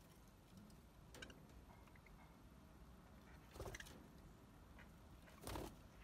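Near silence in a budgerigar aviary, broken by a faint click and two brief rustling sounds about three and a half and five and a half seconds in, as budgies shift on their wooden perches.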